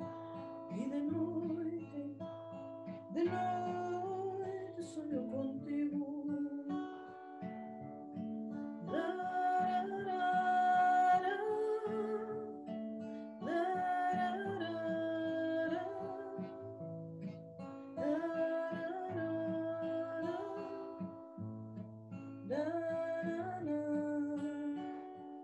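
A woman singing while accompanying herself on an acoustic guitar. The vocal phrases last a couple of seconds each, and the guitar carries on alone between them.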